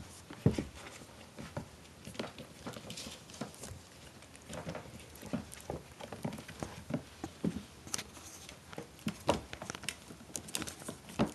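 Irregular light taps, scuffles and soft knocks of four-week-old Maltese–Shih Tzu cross puppies moving and tussling in their pen, mixed with handling, with a sharp knock about half a second in.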